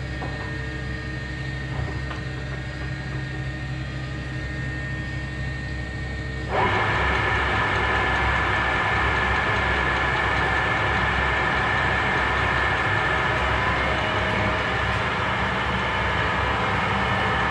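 Monarch 610 Hydro Shift tool room lathe running with a steady hum from its 10 hp motor and headstock. About six and a half seconds in, the spindle engages and the sound jumps suddenly louder and fuller as the chuck turns, then holds steady.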